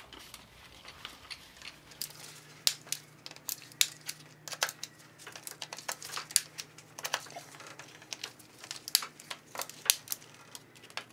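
Irregular small clicks and taps of hand tools on metal parts, from work on the fuel injector retainers of a KA24DE engine, with a faint steady hum underneath from about two seconds in.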